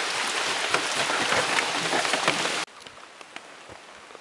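Steady rain falling, with many separate drops striking close by. About two-thirds of the way through it cuts suddenly to a much quieter scene with only scattered drips.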